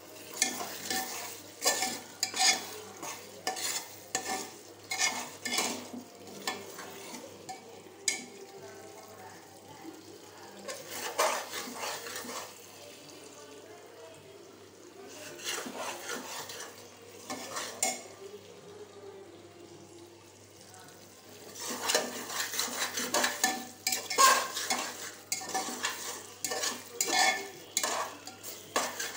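A metal spoon scraping and clinking against an aluminium pressure cooker as a thick curry is stirred, with a light sizzle of the curry frying in oil. The stirring eases off twice in the middle and picks up briskly again near the end.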